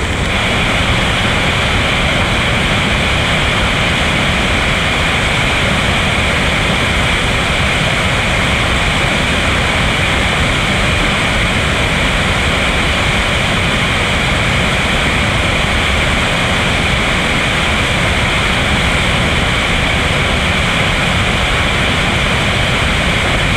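Loud, steady rush and roar of a whitewater rapid, water pouring over a rocky drop.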